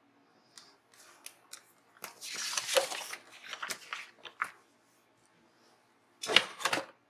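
Paper and sticker sheets being handled at a desk: a few small clicks, then crinkling rustles in short bursts, the longest lasting about a second, another two seconds later, and a loud brief one near the end.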